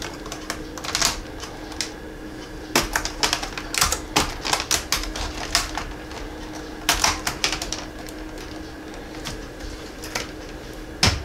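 Flat-blade screwdriver prying at the edge of a laptop keyboard, with sharp irregular plastic clicks and clatter as the blade works under it, trying to pop its retaining clips. The clicks come in clusters, about three seconds in and again about seven seconds in.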